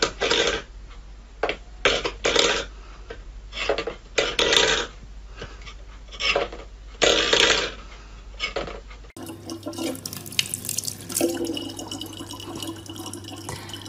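A cat's paw knocking and scraping a stainless steel bowl on a wooden floor, in a dozen or so short, irregular rattles. About nine seconds in, this gives way to water trickling from a thin faucet spout into an open plastic water bottle, over a steady low hum.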